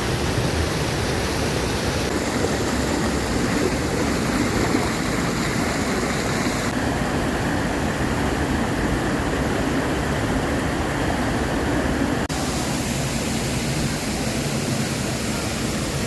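Waterfall rushing: a loud, steady wash of falling water. Its tone changes suddenly three times, as at cuts between shots.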